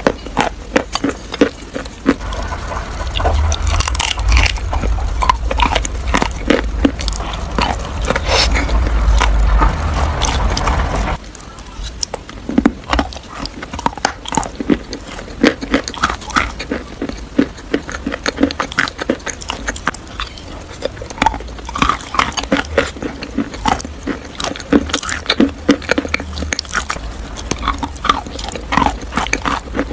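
Close-miked chewing and crunching of crisp food: dense crackling clicks throughout, louder with a low rumble until it drops away suddenly about eleven seconds in.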